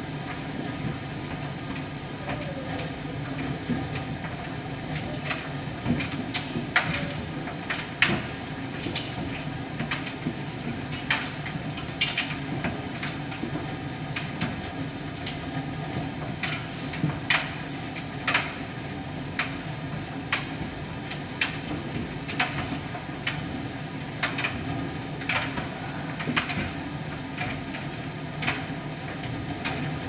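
Miele PT 5136 tumble dryer running: a steady hum with scattered sharp clicks and knocks, a few a second at times.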